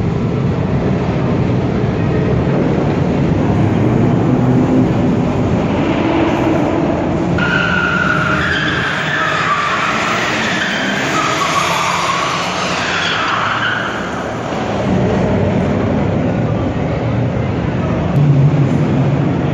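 Car engines revving and tyres squealing as cars spin donuts on concrete; a long, wavering tyre screech from about eight to fourteen seconds in is the loudest part.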